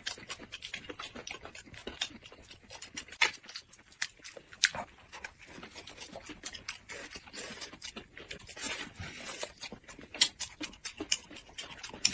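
Close-miked eating sounds: wet chewing and lip smacks from people eating soft dumplings and pancake rolls, made up of many irregular short mouth clicks. The sharpest come about 3, 4.5 and 10 seconds in.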